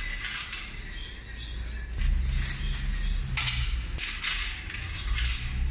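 Plastic bags crinkling and coins clinking as coins are handled at a mechanical vending machine's coin trays, in irregular bursts, over background music with a steady low bass.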